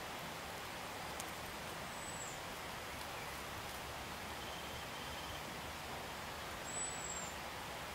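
Steady outdoor background hiss with two brief, high, falling bird chirps, about two seconds in and near the end, and a faint rapid trill between them.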